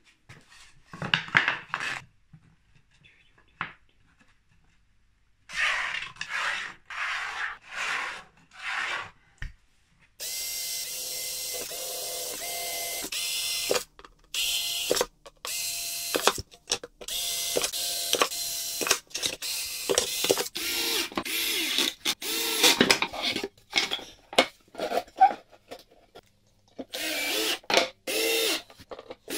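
Cordless drill/driver boring into and driving screws into plywood. It runs steadily for a few seconds, then in many short bursts of trigger on and off. Before that comes a series of about five short noisy strokes.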